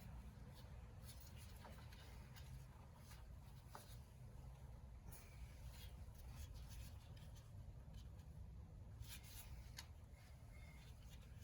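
Near silence: a faint low hum with scattered light clicks and scratches.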